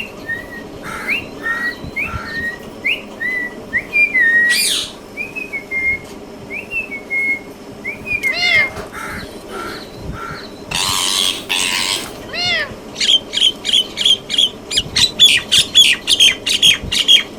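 Indian ringneck parrot calling: short whistled chirps with quick upward flicks, a sweeping call, then two harsh squawk-like bursts about halfway through. Near the end it breaks into a fast run of sharp calls, about four a second.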